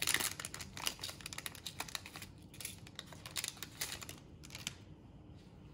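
Foil pouch of a rapid test cassette being torn open and handled: a quick run of crinkles and crackles that dies away near the end.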